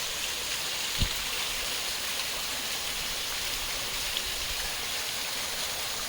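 A stream rushing steadily over rocks, with a brief low thump about a second in.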